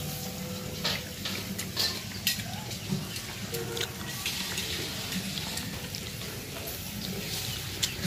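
Dirty dishes being washed by hand: water splashing, with several short clinks and knocks of dishes.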